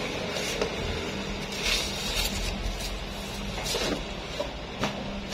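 Cardboard shipping box being handled, with about four short scrapes and rustles against a steady low hum.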